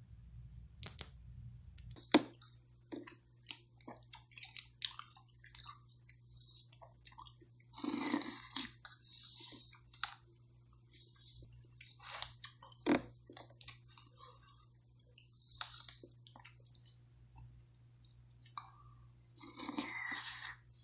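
Close-up chewing and smacking of thawed strawberries, blueberries and blackberries in juice, in irregular bursts, with clicks of a plastic fork against the plastic tub; one sharp click about two seconds in is the loudest.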